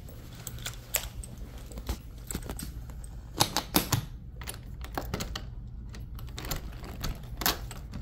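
Irregular light clicks and knocks from a person walking to a door and handling things, with a few sharper knocks about three and a half and four seconds in and again near the end, over a low steady hum.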